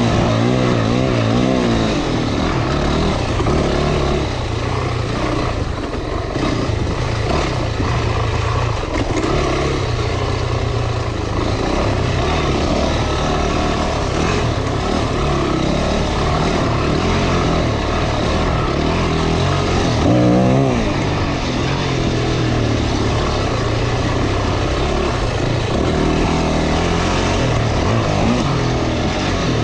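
Motorcycle engine running under way on a dirt trail, with a constant rushing noise of the ride over it. The revs rise briefly about twenty seconds in.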